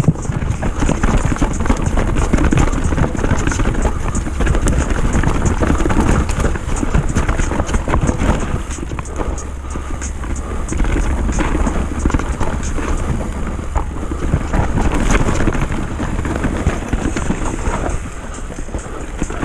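Mountain bike descending a dirt forest trail: tyres rolling over dirt and roots with frequent rattles and clicks from the bike, and wind buffeting the camera's microphone. It gets a little quieter near the end.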